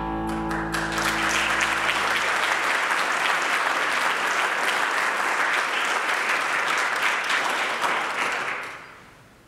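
Audience applauding. The applause rises about half a second in over the last sustained chord of background music, which fades out within the first three seconds, then holds steady and dies away near the end.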